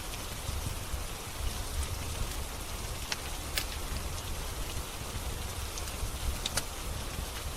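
Steady rain falling, with a low rumble beneath it. A few sharp pops of a crackling wood fire come through about three seconds in and again, as a pair, near the end.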